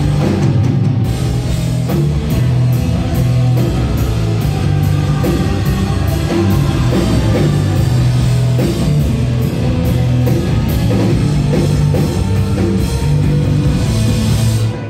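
Live rock band playing loud: electric guitars, bass and a drum kit with regular cymbal hits. The music stops abruptly near the end.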